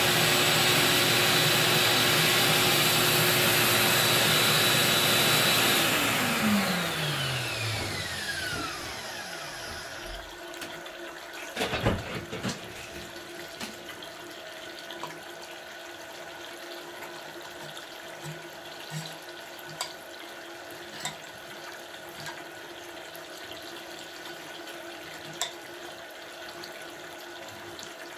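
Vacuum suction machine drawing through a hose seated in a bathroom floor drain, running steadily, then switched off about six seconds in, its whine falling away as the motor spins down. A clatter of knocks follows about twelve seconds in, then scattered small clicks.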